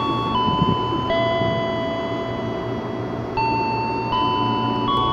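Slow electronic chime melody: clean held notes that step to a new pitch about every three-quarters of a second, over a low steady rumble.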